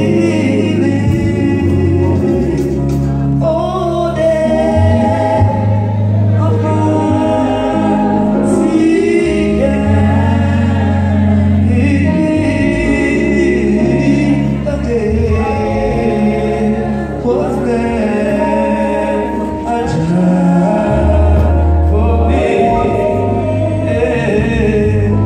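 Gospel singing by many voices, with a bass accompaniment holding low notes that change every couple of seconds.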